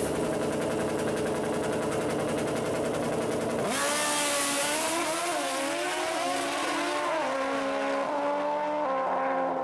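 Two nitrous Suzuki Hayabusa inline-four drag bikes running at a steady pitch on the start line, then launching about four seconds in and accelerating hard down the strip. Engine pitch climbs and drops back with each gear shift, several times in a row.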